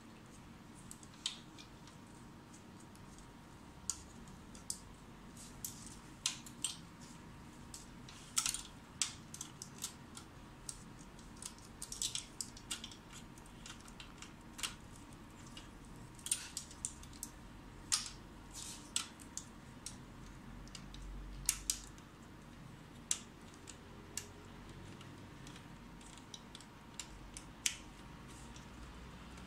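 Irregular sharp clicks and small taps of plastic wire connectors and housing parts being handled inside a disassembled HP LaserJet P1102 laser printer, with a faint steady tone underneath.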